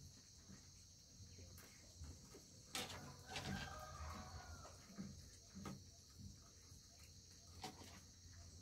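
Near silence: a faint steady drone of insects, with a few soft knocks and a faint distant rooster crow lasting about a second, roughly three and a half seconds in.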